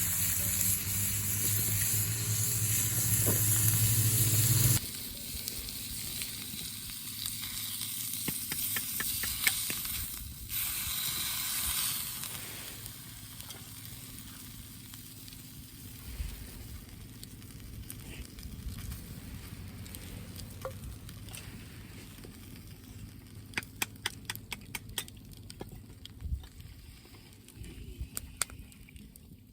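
Food sizzling over a fire, with scattered sharp crackling pops. For the first five seconds a louder steady hiss with a low hum sits over it, then cuts off abruptly.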